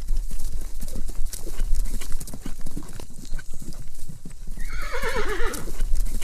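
Horse hooves clip-clopping in a steady run of knocks, with a horse neighing about four and a half seconds in: one quavering whinny that falls in pitch over about a second.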